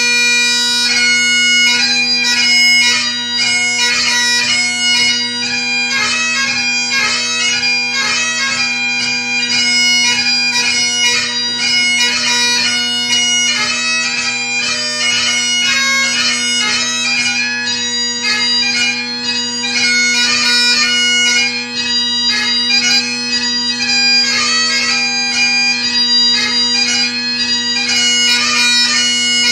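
Great Highland bagpipe playing: steady drones under a fast chanter melody, the tune broken by many quick grace notes.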